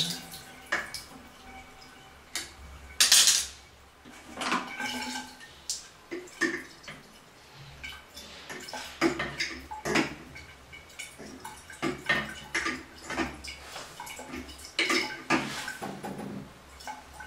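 Irregular metal clinks, taps and scrapes of hand tools (a screwdriver and an adjustable wrench) on a chrome toilet flush valve as it is worked on, with a louder metallic clatter about three seconds in.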